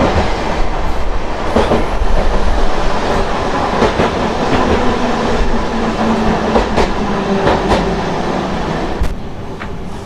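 Hankai Tramway Mo 351-type tram running, heard from inside the car: the low whine of its nose-suspended traction motors and gearing under a steady rumble, with the wheels clacking over rail joints every second or so. The sound drops noticeably quieter near the end.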